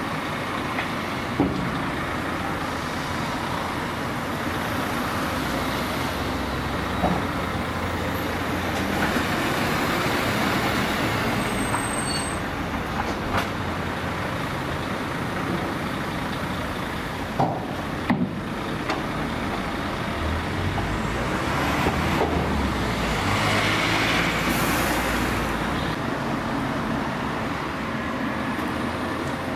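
Diesel engine of a Cat 323D tracked excavator running steadily under load as it digs and loads, with a heavy truck's engine idling alongside. A few sharp knocks as soil and stones drop from the bucket into the steel tipper body, two of them close together near the middle.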